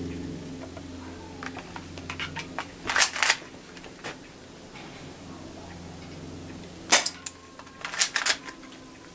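Toy airsoft pistol shooting: sharp clicks and snaps, with loud clusters about three seconds in and again around seven to eight seconds, and lighter clicks before the first cluster.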